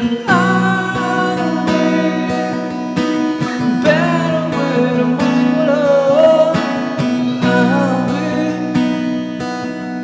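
Acoustic-electric guitar strumming chords, recorded through a BM800 condenser microphone and V8 sound card, with a wordless vocal melody over it.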